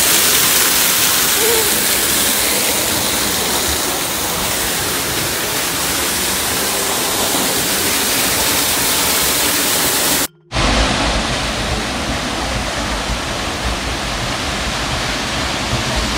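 Waterfall pouring close by: a steady, loud rush of falling water. It cuts out for a moment about ten seconds in, then goes on with less hiss in the highs.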